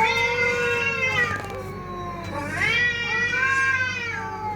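Cat yowling in two long, drawn-out wails, the first at the start and the second beginning about two and a half seconds in.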